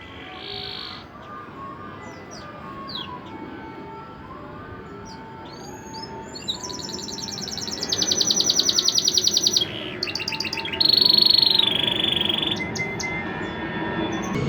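Canary singing: scattered short chirps at first, then about halfway through a run of fast, loud trills and rolls, loudest in the second half.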